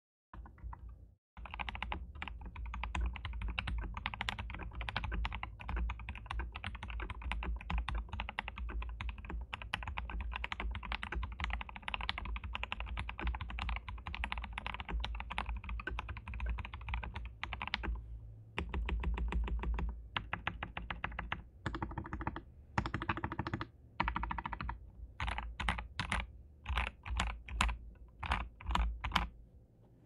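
Typing on a custom 60% mechanical keyboard with Zealios v2 tactile switches (lubed and filmed), PBT keycaps, a polycarbonate plate and an ABS plastic case. A fast continuous run of keystrokes lasts until about 18 seconds in and gives way to shorter bursts. Near the end come single separate key presses, about two a second.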